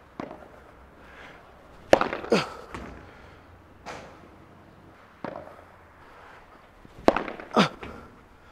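Padel ball hits: sharp pops of a ball struck by a Cork Supreme II Control padel racket. Two loud smashes come about 2 and 7 seconds in, each followed about half a second later by another loud impact, with lighter hits and bounces between them.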